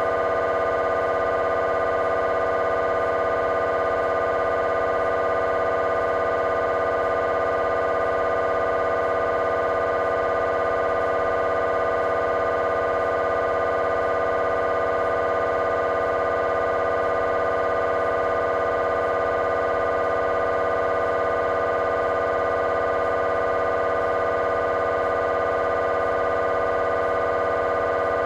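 GE 3 T MRI scanner's gradient coils running a coronal T1 fast spin echo sequence: a steady, even buzzing drone made of several pitched tones at once.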